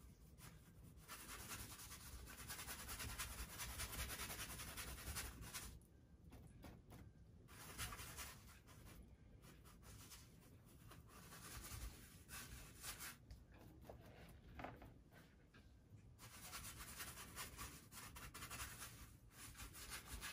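Faint scratchy rubbing of a flat paintbrush working acrylic paint, mixing it on the palette and scrubbing it onto the canvas. The strokes come in several stretches of a few seconds each, with short pauses between.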